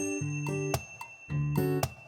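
Background music with plucked string notes in a quick, even rhythm, briefly thinning out in the middle.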